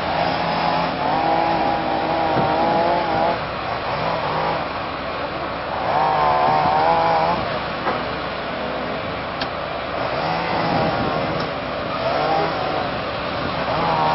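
Compact tracked excavator's diesel engine running, with a wavering hydraulic whine that rises in spells as the boom and bucket push the machine up onto a truck bed under load.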